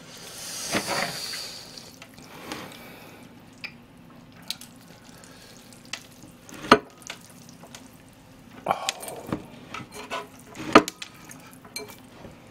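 A long wet slurp of sauced jjolmyeon noodles about a second in, then chewing with scattered sharp clicks and a shorter slurp past the middle.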